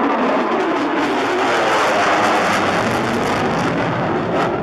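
Jet noise from an F-35 Lightning II's single Pratt & Whitney F135 afterburning turbofan as the fighter flies past: a loud rushing that rises in pitch to a peak about two seconds in, then eases lower.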